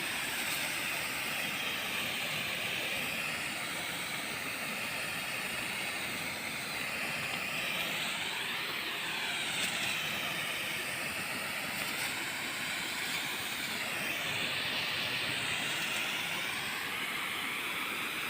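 Heavy rain falling in strong wind: a steady rushing hiss with no breaks.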